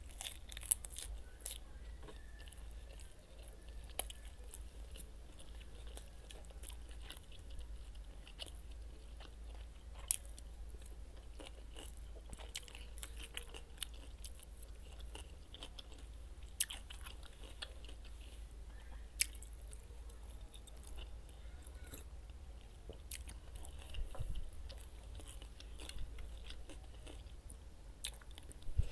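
Close-miked chewing of crisp raw salad: iceberg lettuce and chopped cucumber and carrot crunching wetly in the mouth, with sharp crunches every few seconds.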